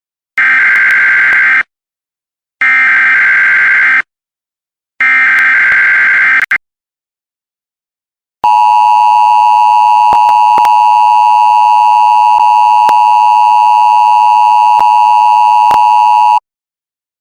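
Emergency Alert System broadcast tones: three short, buzzy bursts of SAME header data, each a little over a second long with short gaps between, then the steady two-tone EAS attention signal held for about eight seconds before it cuts off.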